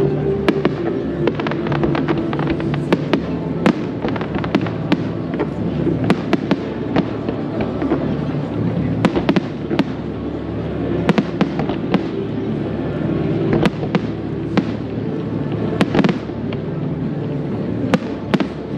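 Aerial firework shells bursting in quick succession: a dense string of sharp bangs and crackles, with a steady low hum underneath.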